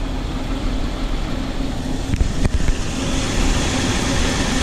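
Nissan Pathfinder's V6 engine idling with a steady hum, the rush of air through the radiator and cooling fan growing louder about three seconds in.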